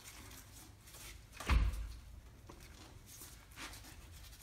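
A single dull thump about a second and a half in, then a few light knocks, as a CV half shaft is worked out of a rear differential by hand.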